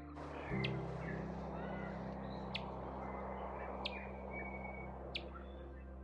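Birds calling: a sharp high chip repeated about every second and a half, with softer chirps and whistles in between. Under them run a steady hiss and low sustained tones.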